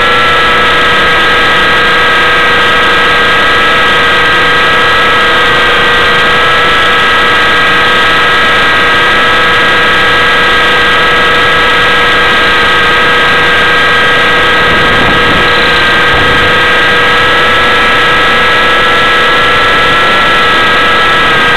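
Loud, steady whine of a T-Rex 600 RC helicopter's drive and rotor, picked up by a camera mounted on the helicopter in flight, with a rushing noise underneath. Its pitch wavers slightly a few times.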